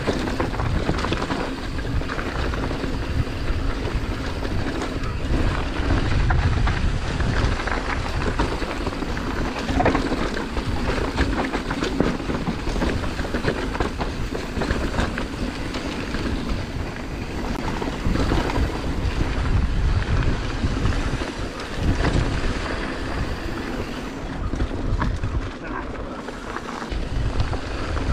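Downhill mountain bike riding fast over a rocky dirt trail: a continuous rumble of knobby tyres on loose stones and roots, with the bike rattling and wind buffeting the action camera's microphone.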